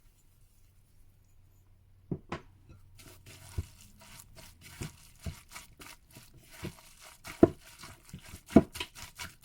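Crinkling and rustling of plastic packaging, with scattered knocks, as dry ingredients are handled over a bowl. A faint low hum underneath.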